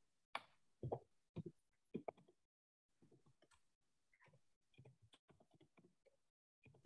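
Faint, sparse clicking of a computer keyboard being typed on, heard through a video call. There are a few sharper clicks in the first two seconds, then fainter scattered ticks.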